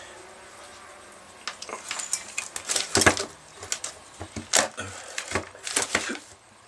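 Handling noise from a handheld digital multimeter being picked up and moved about on a cluttered workbench: a quick irregular run of plastic clicks and knocks, with the test leads rattling, starting about a second and a half in and stopping shortly before the end.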